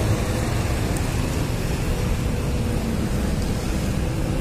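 Steady road traffic noise: a low rumble from passing cars, with a faint engine hum in it.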